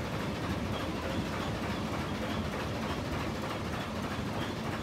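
Brienz Rothorn cog railway train running, a steady, dense noise with a strong low rumble.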